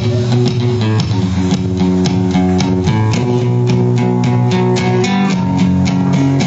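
Guitars playing an instrumental passage: quick picked notes over a sustained bass line.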